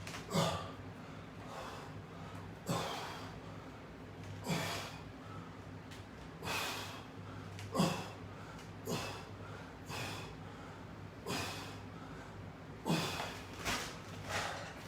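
A man breathing hard through a set of resistance-band pulls, a sharp exhale or grunt roughly every one to two seconds, over a faint steady hum.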